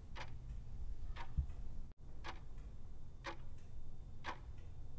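Countdown-timer clock-tick sound effect, a single tick once every second as the quiz answer time runs out.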